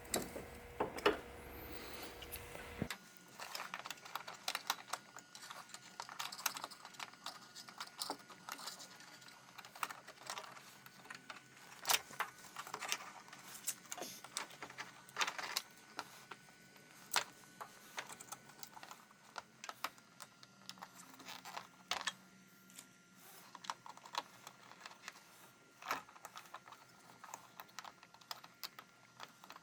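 Irregular light clicks and taps of plastic car headlamp parts (housing, bulbs and sockets) being handled and fitted, with a few sharper clicks now and then.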